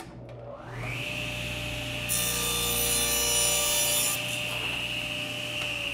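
Table saw switched on with a click, its motor and blade whining up to speed within about a second and then running steadily. From about two seconds in, the blade makes a 90-degree crosscut through a wooden board for about two seconds, a loud hiss over the motor, then runs free and starts to wind down near the end.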